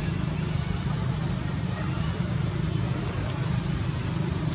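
Steady outdoor background noise: a low rumble under a high drone that swells and fades about once a second.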